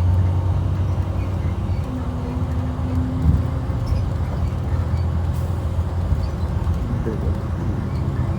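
Steady low drone of a 2012 IC RE school bus's MaxxForce DT diesel engine and road noise, heard from inside the cabin with the bus under way.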